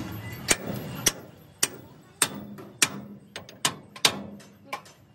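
Hammer blows on a steel bar held against the head of a hydraulic truck-jack cylinder: sharp metal-on-metal strikes, roughly two a second, each ringing briefly. A few lighter, quicker taps come near the end.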